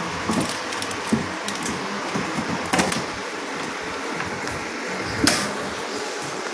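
A few short clicks and knocks from handling the RO water purifier's plastic parts and push-fit pipe fittings, the loudest about five seconds in, over a steady background hum.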